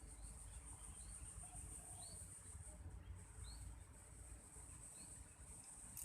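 Faint outdoor ambience: a steady high insect buzz, like crickets or cicadas, with a small bird's short chirps repeating every half second or so over a low rumble.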